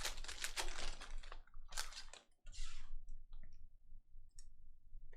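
Trading cards and their foil pack wrapper being handled, rustling in several short bursts over the first couple of seconds, then a few light clicks as the cards are slid and flipped.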